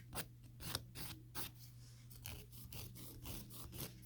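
Hand file rasping across a sculpted gel nail to shape it, in quick short strokes of about three a second. The strokes pause briefly a little after a second in, then resume.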